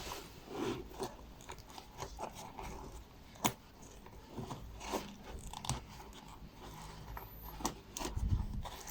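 A small equipment pouch being opened and its contents handled: scattered rustles and soft knocks, with one sharp click about three and a half seconds in.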